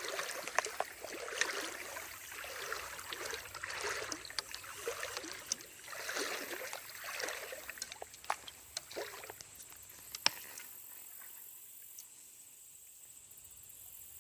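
Creek water trickling and sloshing in uneven swells, with scattered small clicks and knocks. It quietens about ten seconds in.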